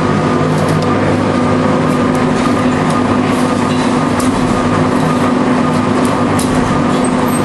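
Wire drawing and ribbing machine running: the gearbox-driven drawing capstan and line give a steady mechanical hum with a few constant tones, and faint ticks now and then.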